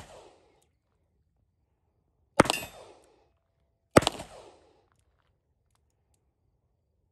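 Two revolver shots fired double action, about a second and a half apart, each trailing off in a short echo; the gun is loaded with 130-grain .38 Special rounds.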